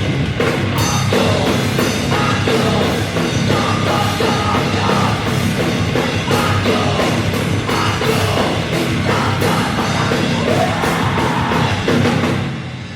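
Rock band playing a heavy rock song live, with drum kit hits throughout; the music drops in level near the end.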